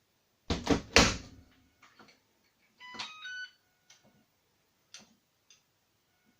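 Electrolux tumble dryer door being shut with three quick knocks, then, about two seconds later, a short tune of electronic beeps from the control panel, followed by a few faint button clicks.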